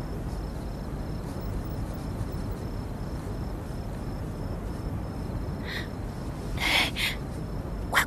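Low steady room tone with a constant faint hum, broken near the end by a few brief scratchy noises.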